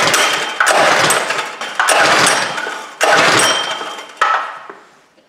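Recoil pull-starter of a Predator 212 single-cylinder engine yanked about four times in a row, a rasping whirr each time about a second apart, the last pull weaker. The engine is being cranked over without firing for a compression test, with a gauge in the spark plug hole.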